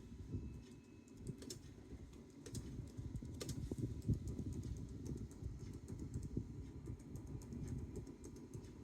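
Typing on a Bluetooth keyboard: a steady stream of irregular quick key clicks.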